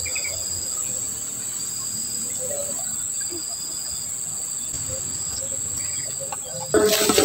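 Insects chirping: a steady high-pitched whine with a shorter trill repeating over it every second or so. Background music comes in loudly near the end.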